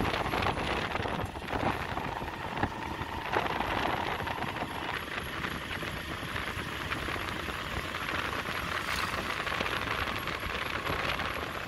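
Roadside outdoor ambience: a steady noisy hiss with distant road traffic, and a few short knocks in the first three or four seconds.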